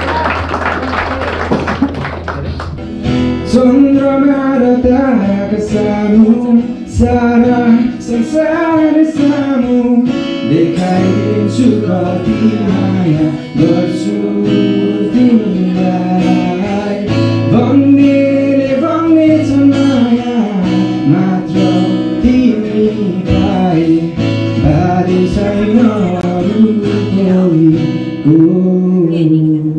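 A man singing a song into a microphone, with strummed acoustic guitar accompaniment.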